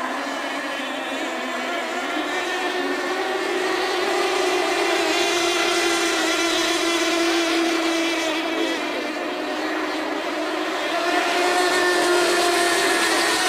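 Several radio-controlled model tunnel boats racing, their small two-stroke engines whining together at high revs in overlapping steady pitches that shift a little as the boats pass.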